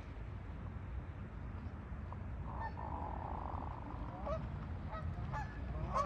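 Geese honking: one longer call about two and a half seconds in, then several short honks toward the end, over a steady low rumble.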